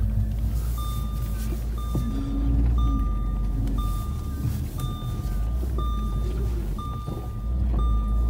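Car's reversing parking-sensor beeping steadily about once a second, a sign that the car is in reverse, over the engine running low, with a brief rise in engine pitch about two seconds in.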